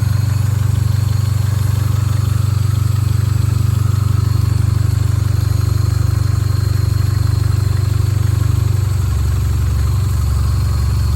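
The freshly rebuilt, forged 4E-FTE 1.3-litre turbo four-cylinder of a Toyota Starlet Glanza idling steadily while its ignition timing is set. The low engine note shifts slightly about nine seconds in.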